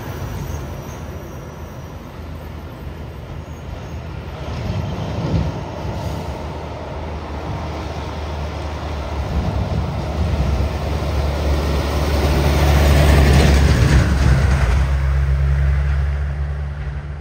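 Heavy diesel truck engine running, growing louder as the truck draws close, loudest about three-quarters of the way through, then fading.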